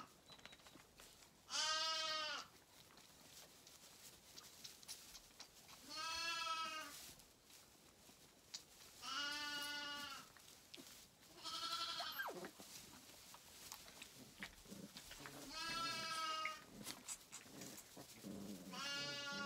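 Lambs bleating: about six high calls, each around a second long, spaced a few seconds apart.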